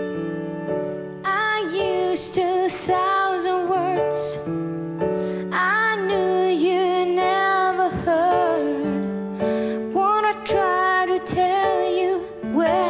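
A woman singing a melody with vibrato into a handheld microphone over sustained held chords; her voice comes in about a second in.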